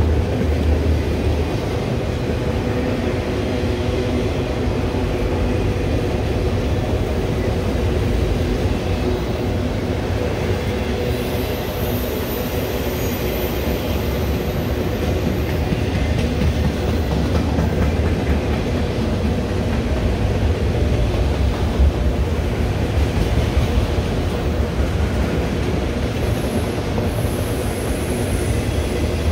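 Norfolk Southern autorack freight cars rolling past: a steady rumble of wheels on the rails, with a thin high-pitched wheel squeal about eleven seconds in and again near the end.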